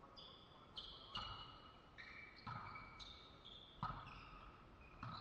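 Faint thuds of a volleyball being bumped with forearm passes and landing on the floor of a sports hall, about five knocks over a few seconds, each ringing briefly in the hall. Short squeaks of sneakers on the hall floor come in between them.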